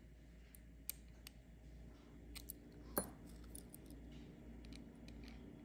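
Faint clicks of a small watchmaker's screwdriver working against a stainless steel watch case. A single louder metallic clink about three seconds in as the tools are swapped.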